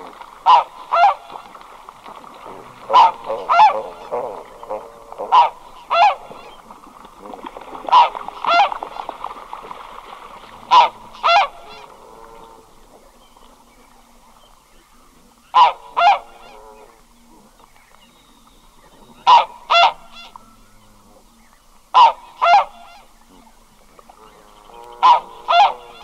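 A single red-breasted goose calling at close range: about nine loud two-note calls, each a quick double honk, repeated every two to four seconds.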